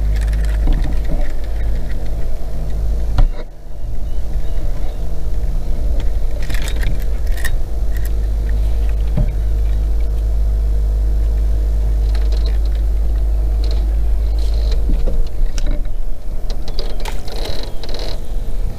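Boat's outboard motor running steadily at trolling speed under a constant low rumble, with a sharp knock about three seconds in and a few light clicks from handling the rod and board.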